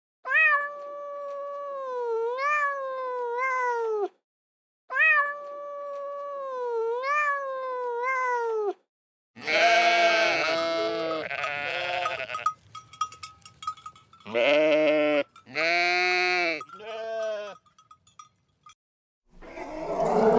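Farm animals calling: two matching long, drawn-out calls of about four seconds each, then a run of shorter bleat-like calls.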